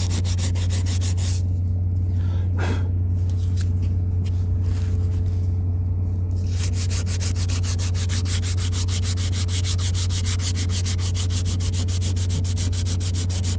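80-grit sandpaper rubbed by hand over fibreglass gel coat in quick, even back-and-forth strokes, smoothing chipped and cracked spots before repair. A steady low hum runs underneath.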